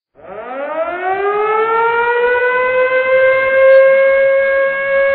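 A siren winding up in pitch over about two seconds, then holding one steady, loud wail.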